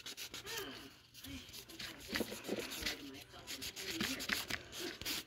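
A multi-sided nail buffer rubbed back and forth across fingernails, a run of short scratchy strokes several a second, with faint murmuring voices in between.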